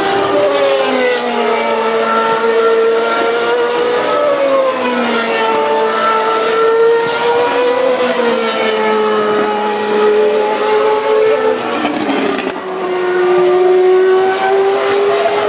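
Several GP2 race cars' Mecachrome V8 engines at high revs on a racing lap, their overlapping engine notes rising and falling in pitch as the cars accelerate, shift gear and pass. Loud.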